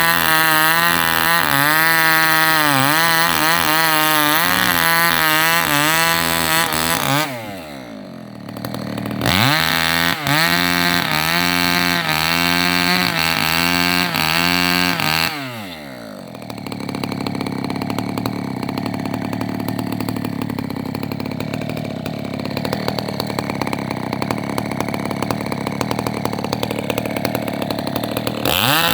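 Chainsaw cutting branches off a felled rubber tree at full throttle, its pitch wavering under load. It drops to idle about seven seconds in, revs up again, then falls back to idle about halfway through and idles until it revs up again at the very end.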